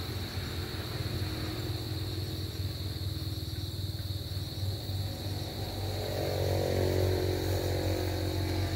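Highway traffic heard as a steady low rumble, with one vehicle passing that swells from about six seconds in and peaks near the end. A steady high insect drone runs underneath.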